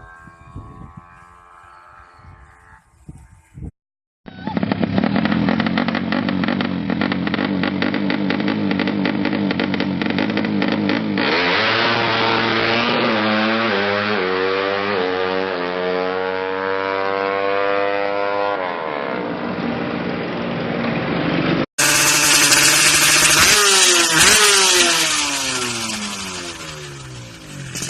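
Drag-race motorcycle engine run hard and revved repeatedly, its pitch sweeping up and down. The sound breaks off abruptly twice and comes back as separate runs.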